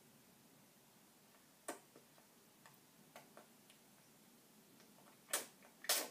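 A baby's mouth working on a plastic feeding spoon: a few faint clicks and ticks, then two short smacking sounds near the end while the spoon is in the mouth.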